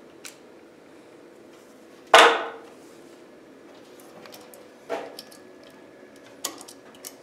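A single sharp knock about two seconds in, then a few faint taps and clicks as the wiring and box are handled.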